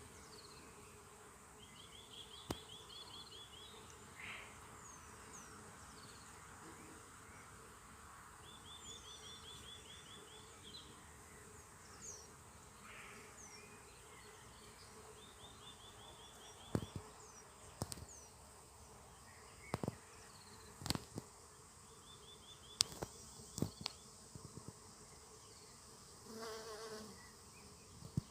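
Outdoor nature sounds: a steady buzz of insects, with short trilled chirping calls repeating every few seconds. Several sharp clicks come in the second half.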